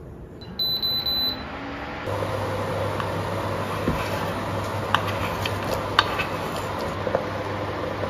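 Induction cooktop giving a short high electronic beep as it is switched on, then running with a steady low hum as the water in the stainless steel pot heats. A few light knocks follow as carrot sticks are slid in from a wooden board.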